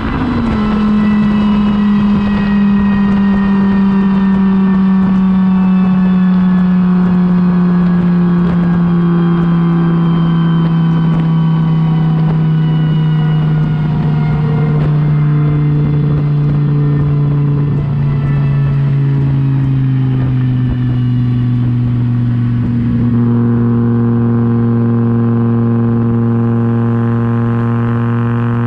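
Audi S4's built 2.2-litre AAN turbocharged five-cylinder through a full 3-inch exhaust with a resonator and no muffler, coming off the throttle at about 135 mph: the note drops sharply at the start, then falls slowly as the car coasts down. About 23 seconds in, the note steadies and grows fuller as the car settles to a cruise around 70 mph.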